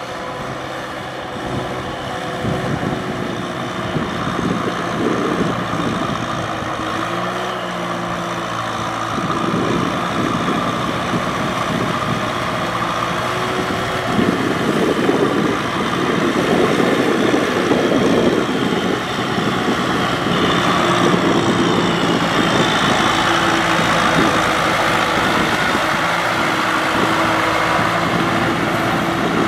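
Kubota M6040SU tractor's diesel engine running steadily under load while it pulls a rotary tiller through wet paddy mud, with a rushing noise of churned mud and water. The sound grows louder around the middle and stays loud.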